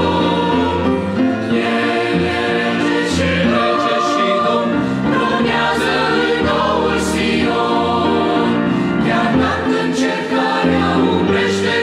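Mixed choir of men's and women's voices singing a hymn in Romanian, in full sustained chords.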